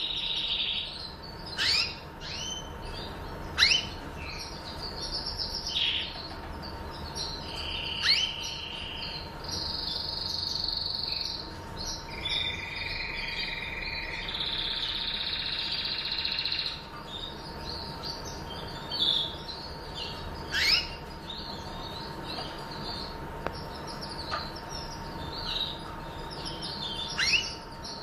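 Caged yellow Gibboso Español canaries singing: long buzzing trills, mostly in the first half, mixed with sharp downward-sliding chip notes every few seconds.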